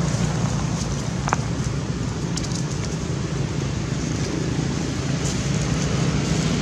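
Steady low rumble of outdoor background noise, with one short high squeak about a second and a half in.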